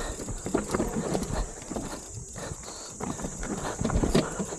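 Mountain bike clattering over a rough, technical trail: irregular knocks and rattles from the bike as it rides over rocks and roots, the loudest knock a little after four seconds in.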